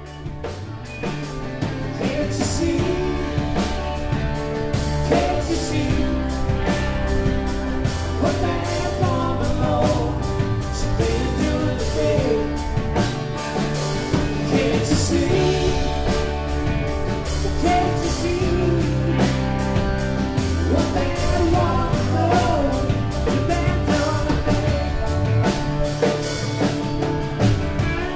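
Live rock band playing: two electric guitars over a drum kit keeping a steady beat, with a man singing. The sound fades in over the first two seconds.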